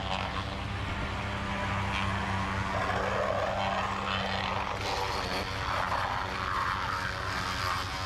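Concrete mixer truck's diesel engine running, a steady low drone.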